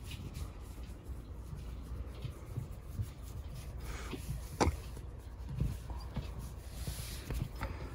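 A cat's fur being scratched and stroked by hand on a bed: soft rustling of fur and bedsheet, with a few light taps and one sharper click about four and a half seconds in.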